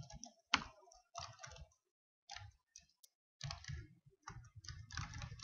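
Computer keyboard keys clicking as code is typed, in irregular keystrokes. There is a pause of about a second in the middle, then a quicker run of keys near the end.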